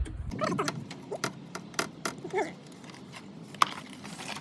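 Scattered light clicks and knocks of hand work on car parts, with two brief pitched sounds, one near the start and one about halfway.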